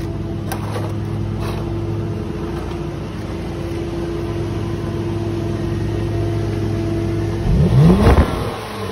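Nissan Altima engine idling steadily through a makeshift aluminium duct-elbow exhaust extension taped onto the tailpipe. It is revved once, briefly, near the end: the pitch rises and falls back.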